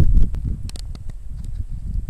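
Wind buffeting the microphone in uneven gusts, heaviest right at the start, with a few sharp clicks in the first second.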